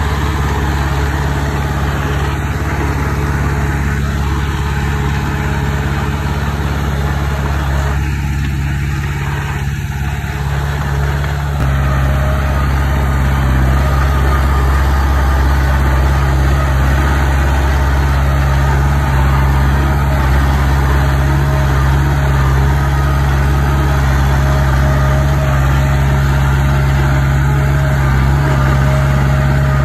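Heavy diesel engine of construction machinery running steadily, growing louder about twelve seconds in as it takes more throttle.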